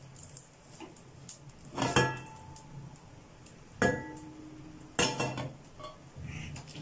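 A non-stick frying pan clanking three times against the gas stove's burner grate as it is shifted and tilted, each clank with a brief metallic ring.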